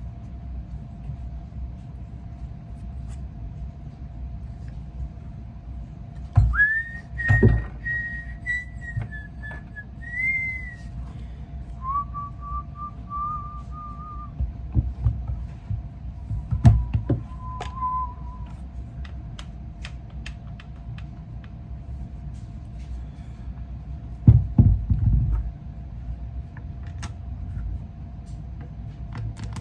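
A person whistling a few short tunes, first higher and then lower, with sharp clicks and knocks from handling the parts of a bolt-action rifle. A steady low hum runs underneath.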